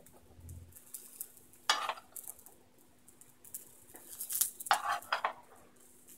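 Spatula scraping and knocking on a flat tawa pan as a cooked egg omelette is lifted and rolled up: a couple of short scrapes, then a quick run of them about four to five seconds in.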